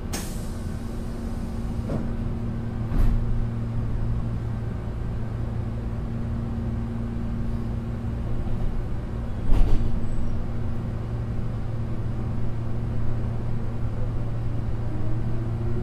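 Inside a Meitetsu 6800-series electric train: a steady low hum, broken by two heavy thuds about three and nine and a half seconds in. Near the end a rising whine begins as the traction motors pick up speed.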